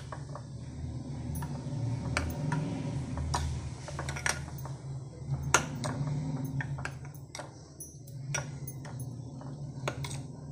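Steel spoon stirring curd in a glass bowl, with irregular light clicks and scrapes of the spoon against the glass over a soft, steady swishing.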